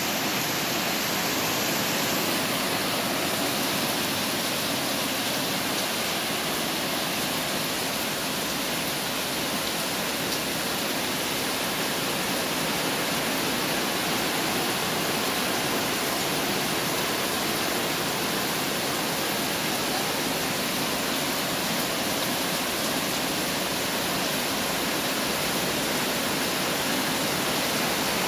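Heavy rain falling steadily onto plants and pooled muddy runoff water: a dense, even hiss that does not let up.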